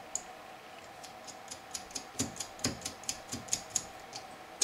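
Light, irregular small clicks and ticks, a few a second, as M2 screws and a small end stop switch are handled and fitted against a 3D-printed plastic part.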